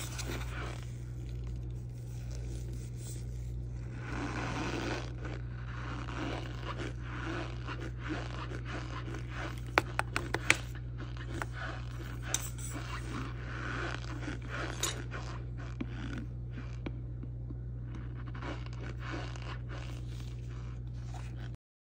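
Plastic spoon scraping and stirring through dry, crumbly powder in a plastic container, with a quick run of sharp clicks about ten seconds in. The sound stops abruptly near the end.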